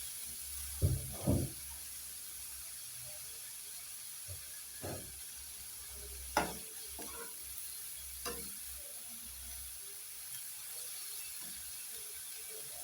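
Shredded cabbage, onions and carrots frying in oil in a pan with a faint steady sizzle, and a spoon scraping and knocking against the pan a few times as the vegetables are stirred.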